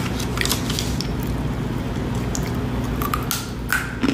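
A person chewing a crunchy snack stick with the mouth closed: soft wet mouth sounds and scattered small crunches, a little louder near the end, over a steady low electrical hum.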